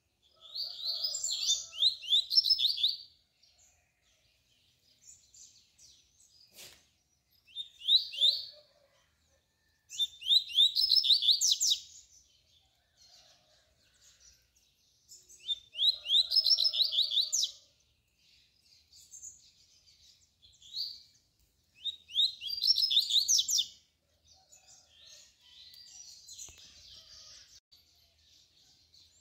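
Male double-collared seedeater (coleiro) singing its 'tui-tui' song: about five loud phrases of quick, high, falling notes, each a second or two long and a few seconds apart, with faint single notes between them.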